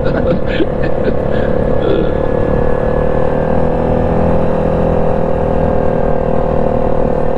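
Off-road vehicle engine running steadily at trail-riding speed, its pitch nearly constant, under rumbling wind and tyre noise.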